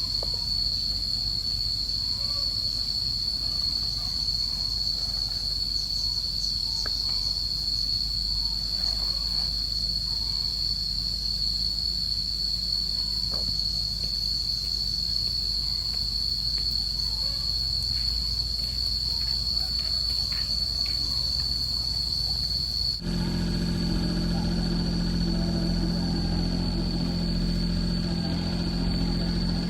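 Insects such as crickets or cicadas keep up a steady, high-pitched drone. About three quarters of the way through, an engine starts to be heard running at idle under the drone.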